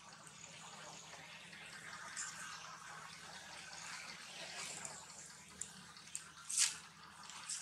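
Small wet clicks and smacks of a long-tailed macaque mother chewing green food and her baby suckling, over a faint rustle of dry leaves, with one louder sharp crackle near the end.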